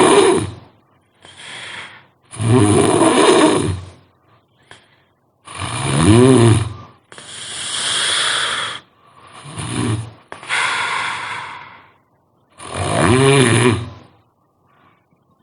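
A sleeping person snoring loudly. Four strong rattling snores come a few seconds apart, with quieter breathy breaths between them.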